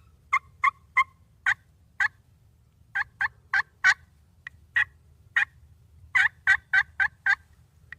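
Hand-operated turkey call played as a hen's yelping: about seventeen short two-pitch yelps in several runs, ending with a quick run of five.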